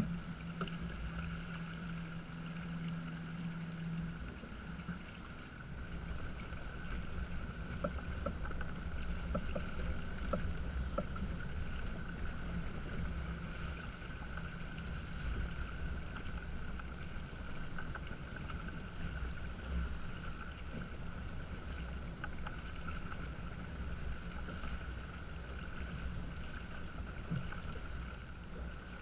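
Water rushing along the hull of a small sailing yacht heeled and under way, with wind buffeting the microphone in a steady low rumble. A few faint ticks come about eight to eleven seconds in.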